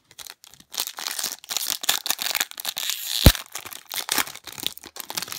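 Foil wrapper of a 2015-16 O-Pee-Chee Platinum hockey card pack being torn open and crinkling in the hands as it is peeled off the cards. There is one sharp knock about three seconds in.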